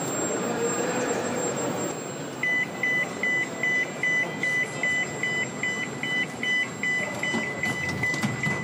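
Electronic warning beeper in a metro, beeping rapidly (about two and a half beeps a second) for about six seconds from roughly two seconds in, then holding a steady tone near the end, over the rumble of a metro train.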